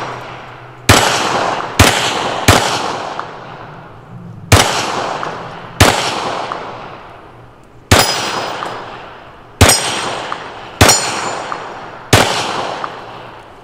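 Nine 9mm pistol shots fired at a slow, uneven pace, about one to two seconds apart. Each shot is followed by a long fading ring, some with a clear high metallic tone, from AR500 steel targets being hit.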